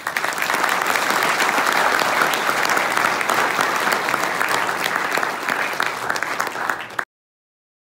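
Audience applauding: dense, even clapping that stops suddenly near the end.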